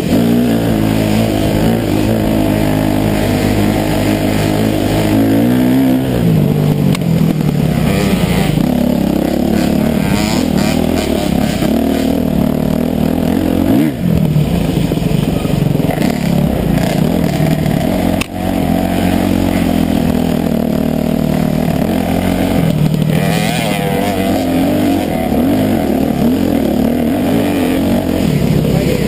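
Off-road dirt bike engine ridden hard, heard close from the rider's own bike: the revs rise and fall continuously with the throttle, with a climb in pitch early on and two brief drops in the revs partway through.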